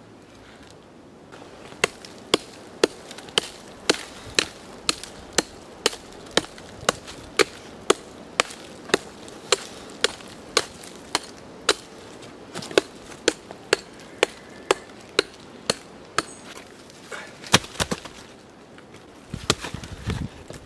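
Hand tool striking volcanic rock in sharp, evenly spaced blows, about two a second, stopping after about fourteen seconds; near the end a heavy stone scrapes and knocks as it is moved.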